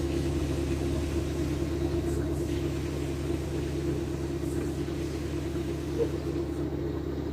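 An engine idling steadily: a low, even rumble with a steady hum, and a small knock about six seconds in.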